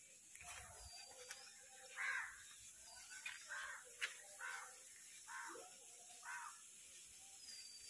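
Crows cawing: a series of short, harsh caws about once a second, faint.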